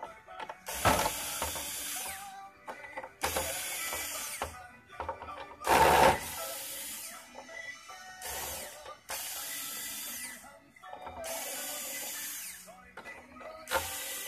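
Corded electric screwdriver running in about seven short bursts of roughly a second each, backing the screws out of an LED display module's mask.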